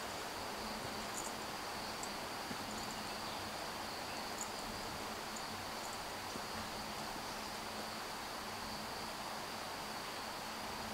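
Steady high-pitched insect chorus droning without a break, over a soft even hiss, with a few faint short high chirps in the first half.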